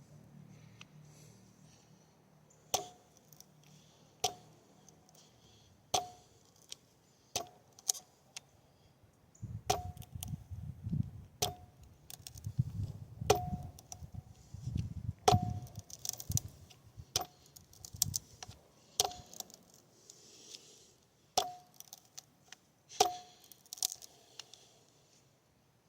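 Stiletto OTF knife being stabbed point-first into a target again and again for a tip test: about a dozen sharp knocks, roughly one every one and a half to two seconds, each with a short ringing tone. A low rumble sits under the middle stretch.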